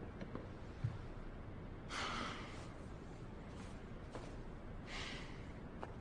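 Faint, quiet scene with a few soft breaths, short puffs of air a second or so apart, over low steady room tone.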